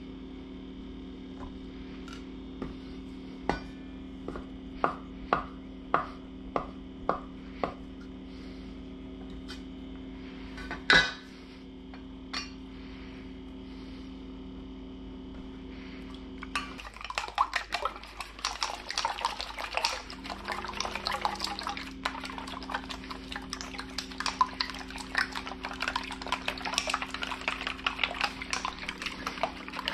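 A cleaver chopping butter on a wooden cutting board: a run of sharp knocks, then a single louder knock. Just past halfway, chopsticks start beating eggs in a stainless steel bowl, a fast continuous clatter. A steady low hum runs underneath.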